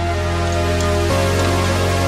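Background music of held chords, changing to a new chord about a second in.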